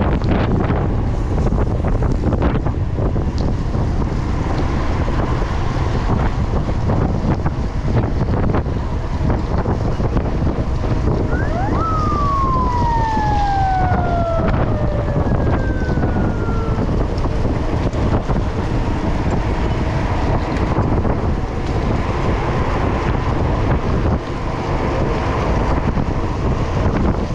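Wind buffeting the microphone of a camera on a mountain bike's handlebars, riding at about 32 km/h in a pack on a wet road. About twelve seconds in, a high tone glides steadily down in pitch for a few seconds.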